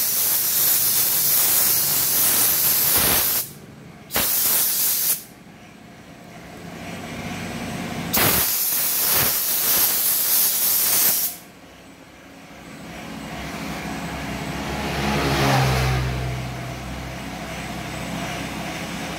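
Compressed-air paint spray gun hissing in three long bursts, spraying thinner over the edge of a fresh clear coat to melt in the blend. In the second half a fainter hum swells and fades.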